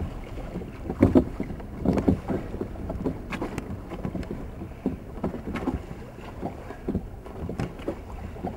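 Oars of a rowing whaleboat, pulled gently, clunking in their rowlocks and dipping into the water stroke by stroke, with sharp knocks about once a second. Low wind rumble on the microphone underneath.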